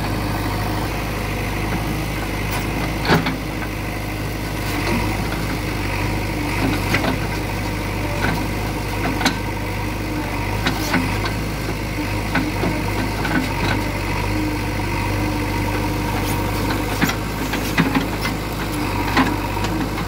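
JCB 3DX backhoe loader's diesel engine running steadily as the backhoe arm works, with scattered sharp knocks as the bucket bites into a stump and lifts a log.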